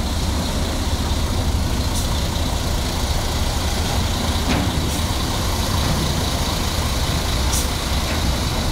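Heavy diesel coach engine running low and steady as the coach crawls forward onto a ferry deck, with a few faint clicks.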